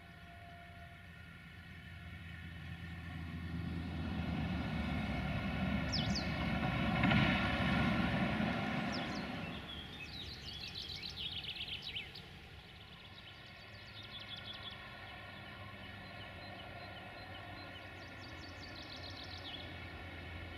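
Distant rumble of a train at a railway station, swelling over several seconds and fading again, over a faint steady hum. Songbirds chirp in short bursts through it.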